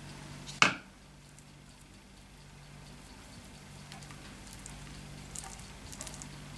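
A single sharp metal clink about half a second in as a spoon used to put cheese on the dough is knocked against something or set down, then faint soft ticks of hands rolling the dough, over a steady low hum.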